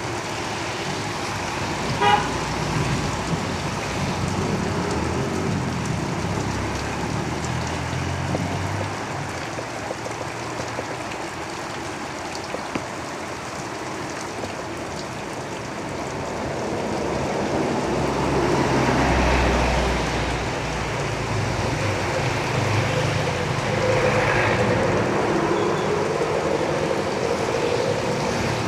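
Steady rain on a roof with road traffic passing close by. A short vehicle horn toot comes about two seconds in, and vehicles rumble past about two-thirds of the way through and again near the end.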